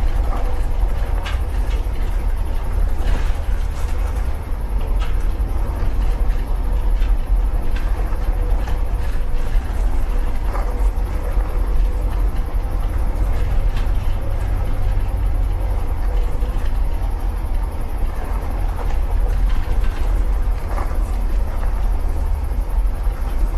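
Engine of a 1950 truck running steadily: a continuous low rumble, with faint clicks and rattles now and then.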